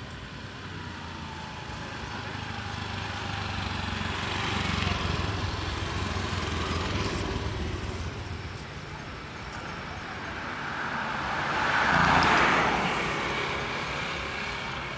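Motor vehicles passing by: a steady engine hum that swells about five seconds in, then rises to its loudest about twelve seconds in and fades away.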